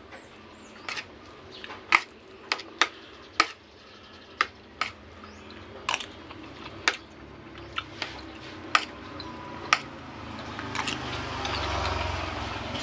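A run of sharp, irregularly spaced knocks and clicks of kitchen utensils on dishes or a board during food preparation, with a short swell of rushing noise near the end.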